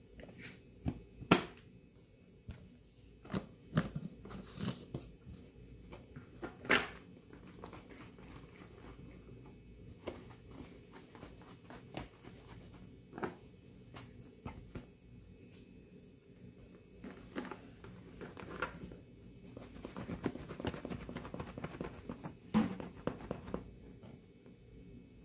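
Plastic wipe containers being handled on a countertop: scattered sharp clicks and knocks as lids are closed and tubs are moved and set down, the loudest about a second in, around seven seconds in and near the end, with a stretch of light rustling in between.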